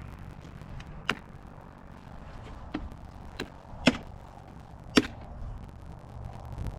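Plastic mirror cap being pressed onto a Toyota Tundra's side mirror, its clip tabs snapping into place: five sharp clicks spread over a few seconds, the loudest two about four and five seconds in.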